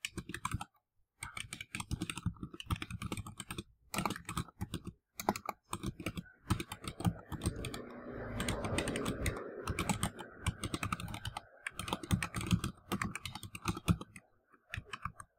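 Computer keyboard being touch-typed in quick runs of key clicks, one word at a time, with short breaks between words.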